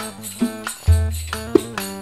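Fast Turkish folk dance music played live: a bağlama plucked in quick runs of notes over electronic keyboard accompaniment, with jingling percussion and a deep bass note about a second in.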